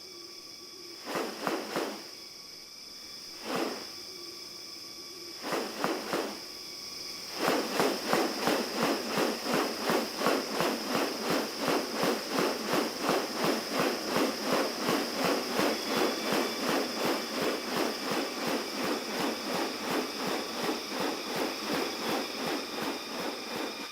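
Rainforest insects: a steady high-pitched drone runs throughout, with a few short rasping bursts. From about seven seconds in, a fast, even pulsing rasp of about four pulses a second joins it.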